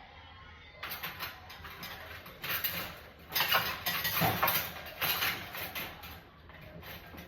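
Dishes and cutlery clattering as they are loaded into a dishwasher: a run of short, irregular knocks and scrapes, busiest in the middle.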